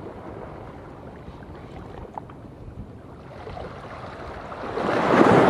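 Small sea waves washing against shore rocks, a low steady wash that swells near the end into one louder surge of a wave breaking over the rocks.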